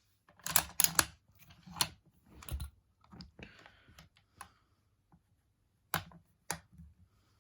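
Bolt action of a Lee-Enfield SMLE No. 1 Mk III rifle being worked by hand: a run of sharp metallic clicks and a short sliding rasp as the bolt is opened, drawn back and closed. Two sharp snaps about six seconds in, which fit the striker falling in a second dry fire on an empty chamber.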